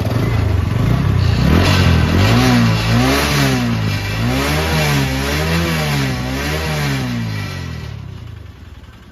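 Single-cylinder engine of a TVS Apache RTR 160 motorcycle being revved in quick blips, the pitch rising and falling several times, then dropping back near the end. The engine has a rattling noise that gets quieter as the revs rise and louder when the throttle is released.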